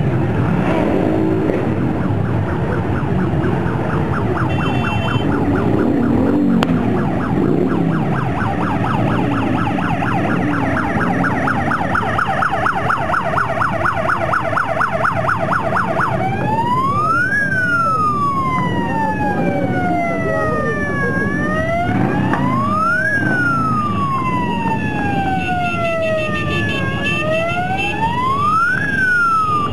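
A column of motorcycles rumbling past at parade pace, engines running together. Over them a siren sounds: a fast warble from about a quarter of the way in, switching about halfway through to a slow wail that rises and falls every few seconds.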